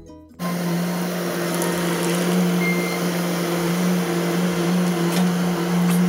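Bobcat skid steer's diesel engine running steadily at high throttle under load as it pushes into brush, a loud even drone with a whine on top. It cuts in over background music about half a second in.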